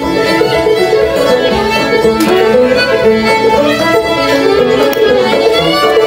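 Violin playing a melody over acoustic guitar accompaniment.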